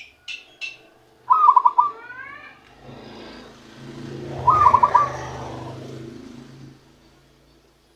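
Zebra dove (perkutut) cooing: two short bursts of quick staccato coos, about a second in and again just past the middle. It is a wild-caught bird beginning to sing its natural call. A low steady hum runs under the second burst.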